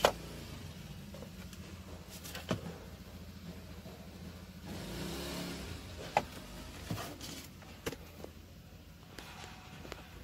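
A DVB-T2 set-top receiver being picked up, shifted and set back down on a car's dashboard shelf, its casing giving several sharp knocks and clicks over a steady low hum in the cabin.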